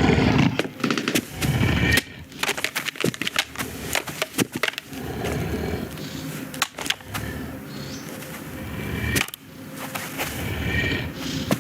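Film sound effects: a loud, dense noise for about two seconds, then a run of scattered sharp clicks and knocks over a lower background.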